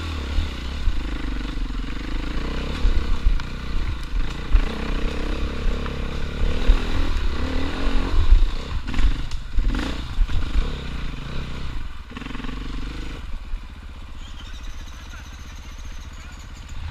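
Enduro motorcycle engine revving up and down under load on a climb, with some knocks and clatter. About thirteen seconds in it drops to a quieter, steadier note.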